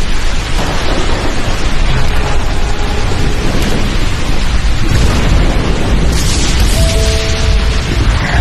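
Loud channel-intro soundtrack: a dense, rumbling cinematic track with heavy bass and boom-like hits. A rushing swell comes about six seconds in, and a couple of brief held tones follow near the end.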